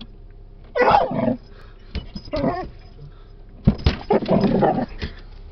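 Dog growling and barking in three loud bursts as it attacks the moving windshield wipers, with a few sharp knocks among them.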